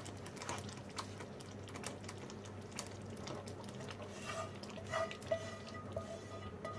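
A spoon scraping and tapping against a metal pan, with a few small ringing clinks, as sautéed paneer cubes and capsicum are transferred into the gravy and stirred.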